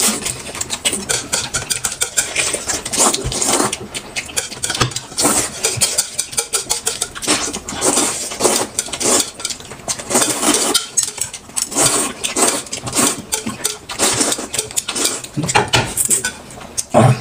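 Eating utensils clicking and scraping against dishes during a meal, in a dense, irregular patter of short knocks.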